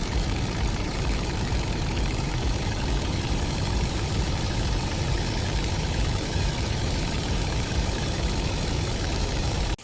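Steady, loud machine noise: an engine-like rumble with hiss across the whole range, which cuts off suddenly at the end.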